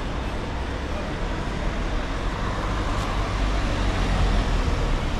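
Street traffic noise: a motor vehicle's engine running close by over the steady hum of a city street, a little louder about four seconds in.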